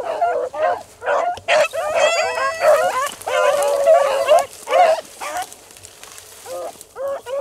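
Rabbit hounds barking and baying in short yelps and longer drawn-out howls, several voices overlapping, starting suddenly.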